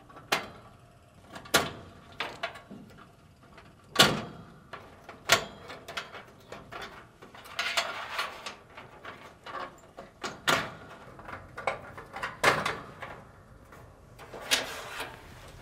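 Push-on wire connectors being wiggled and pulled off the terminals of a Fisher & Paykel dryer's heating element: irregular metal clicks and knocks, with a couple of short rattling stretches.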